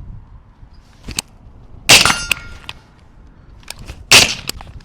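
Two suppressed rifle shots from a 5.56 rifle fitted with a Rugged Razor suppressor, about two seconds apart, each a sharp crack with a short tail.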